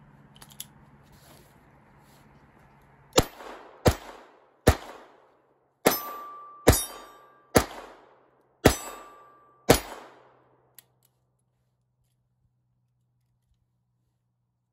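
Eight .22 LR shots from a Ruger LCR eight-shot double-action revolver, fired at an even pace of about one a second. Three of them are followed by a short metallic ring from hit steel targets. A couple of light clicks come near the start.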